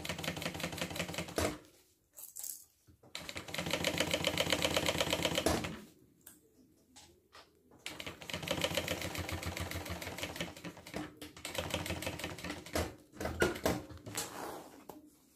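Industrial straight-stitch sewing machine stitching a zipper into a bag, a fast even run of needle strokes. It sews in several runs of a few seconds each and stops briefly between them.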